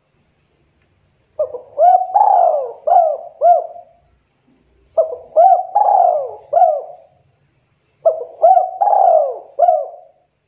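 Spotted dove cooing: three phrases of several notes each, a few seconds apart, each phrase with one longer drawn-out note among shorter coos.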